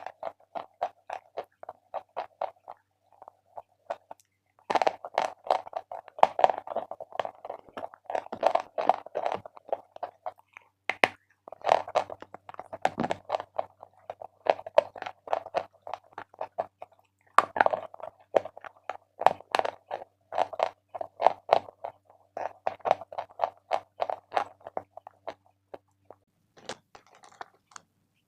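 Close-up crunching and chewing of Big Love eating chalk: rapid crackly bites and chews in runs, with short breaks about four seconds in and again near eleven seconds, stopping near the end.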